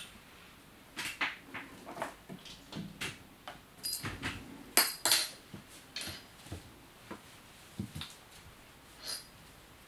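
Irregular taps, scuffles and light metallic clinks as a British Shorthair kitten plays on a hard surface around a metal rod. The loudest clinks come about five seconds in.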